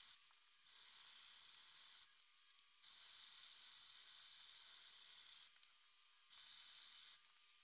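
A strip of sandpaper pulled back and forth, shoe-shine fashion, across the back strap of a Beretta 92FS aluminium-alloy frame held in a vise, smoothing the filed-down grip: a faint, steady hiss in three spells of one to three seconds with short pauses between.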